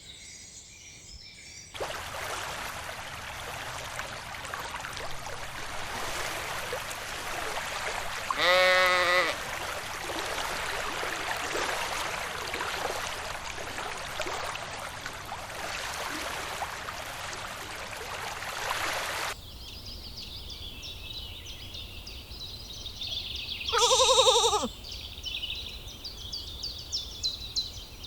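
Lamb bleating twice, once about eight seconds in and again about twenty-four seconds in, each call a single wavering bleat of about a second. Between them is a steady rushing background noise that cuts off abruptly about nineteen seconds in, giving way to faint high-pitched chirping.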